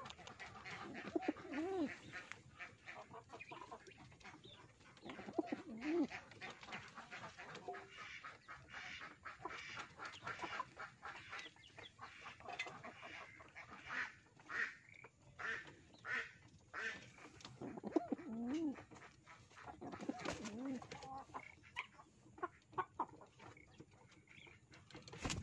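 Java Sungut pigeon cooing several times in low, rising-and-falling coos, among scattered clicks and rustles as the bird is handled on a slatted bamboo floor.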